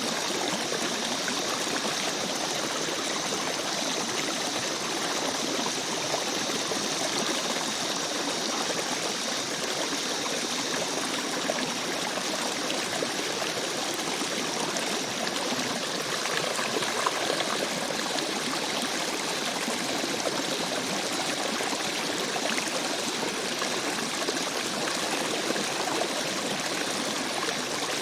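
River stream running steadily over rocks, a continuous rushing with small trickles and splashes.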